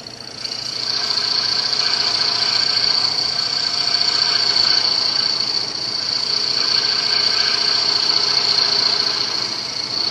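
Scroll saw running at low speed, its number 2 jeweler's blade cutting through a coin (a quarter) clamped in a wooden jig. A steady high-pitched tone with a rasp underneath, getting louder about a second in as the blade bites into the metal.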